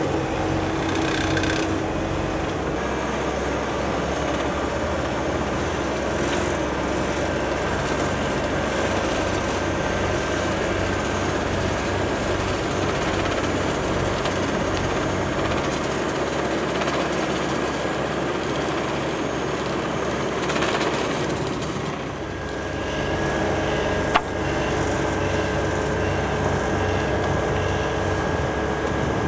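Dynapac F9-6W wheeled asphalt paver running steadily while paving, its diesel engine and feed machinery making an even mechanical noise. One sharp knock comes late on.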